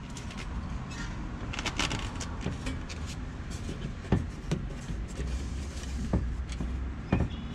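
Hydraulic floor jack being pumped up under load to lift an exhaust system, with irregular clicks and clanks from the handle strokes and a few short squeaks that drop quickly in pitch.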